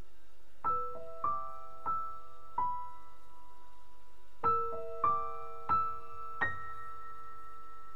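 Background music: a slow, gentle piano melody, single notes struck and left to ring, in two phrases of four notes each.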